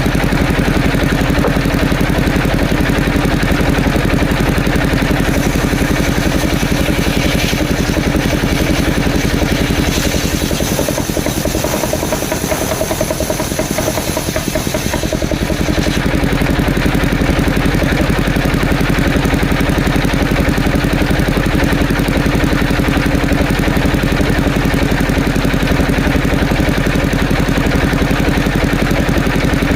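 Engine-driven saw running steadily with a constant low hum. Between about ten and sixteen seconds in, a high whine joins and the low end drops, then the steady running returns.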